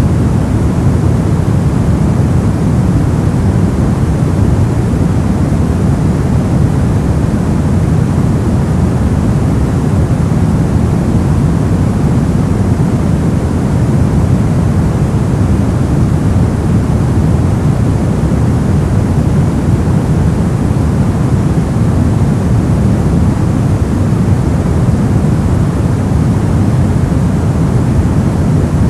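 Steady brown noise: an even, unchanging hiss-like rumble, heaviest in the low end and dark in tone, with no events or variation.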